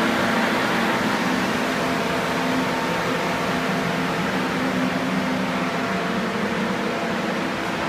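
Water-damage restoration air mover (a floor-drying blower fan) running steadily: an even whir of moving air with a low hum underneath.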